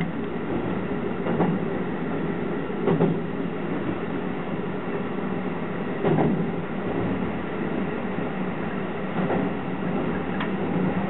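Keihan 13000 series electric train running at speed, heard from inside the driver's cab: a steady rumble of wheels and running gear with a few single knocks as the wheels pass rail joints, about 1.5, 3, 6 and 9 seconds in.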